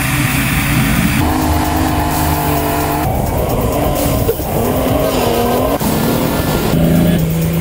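Turbocharged straight-six engine of a BMW E36 M3 revving hard during a drift, its revs rising and falling, with the tyres squealing as they spin.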